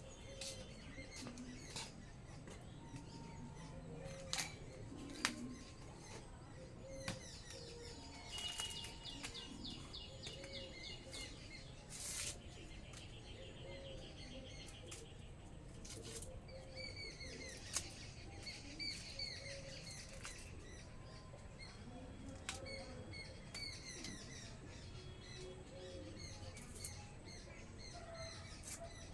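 Several small birds chirping and calling, faintly, with scattered sharp clicks and a low call repeated every second or two.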